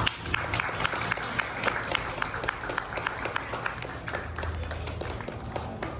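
Audience applauding: many hands clapping irregularly, starting right after the speech ends and easing off slightly toward the end.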